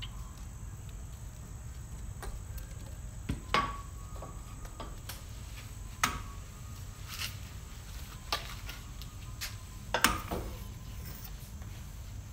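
Long-handled scrub brush working on a fiberglass boat hull: irregular sharp knocks and taps of the brush head and its metal pole against the hull, over a steady low hum.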